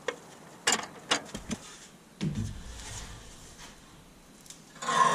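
Stainless steel grille bars clicking and tapping as they are handled and fitted into the grille frame, then a single low thud about two seconds in. A louder sound with a clear pitch starts right at the end.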